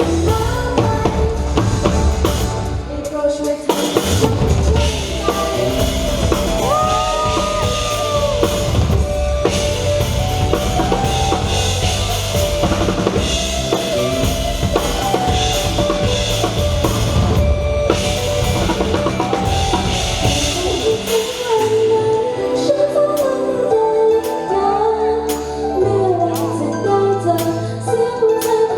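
Pop song played over a concert hall's PA system, with a drum-kit beat of bass drum and snare under melodic instruments. The low drum part thins out about twenty seconds in.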